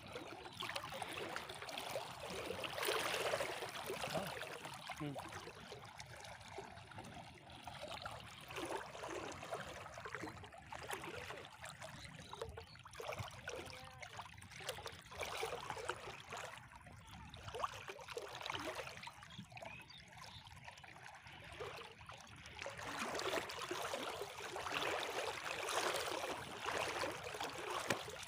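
Water splashing and trickling as a wet gill net is hauled up out of a river by hand, dripping back into the water, with sloshing from wading. It grows louder about three seconds in and again near the end.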